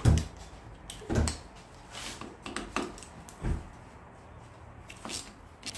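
Scattered knocks and clicks of a hand tool and metal parts on a workbench as the housing of a Kia Stinger electric power steering rack is being unscrewed, about six short knocks, the loudest right at the start.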